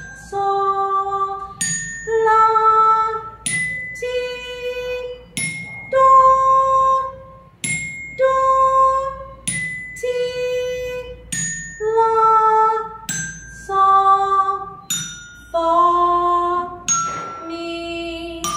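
A woman sings the solfège scale slowly, one held note about every two seconds, climbing step by step to high do and then stepping back down. Each note begins with a bright bell-like ding.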